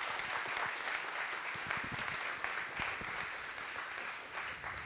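Audience applauding, a dense steady clapping that starts to die down near the end.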